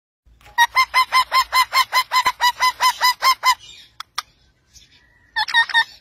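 Rose-ringed (Indian ringneck) parakeet calls: a rapid series of short, repeated calls at about five a second for some three seconds. Then come two sharp clicks and, near the end, a shorter run of four calls.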